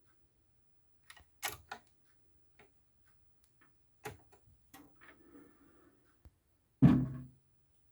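Dual CS505-3 turntable: scattered light mechanical clicks, then, near the end, a louder knock that rings briefly with a low hum before dying away.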